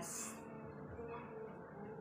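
Faint background music.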